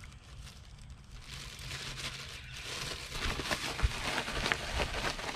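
Hot cooking oil sizzling and crackling, with many sharp pops. It builds from about a second in, as the oil comes up to frying temperature.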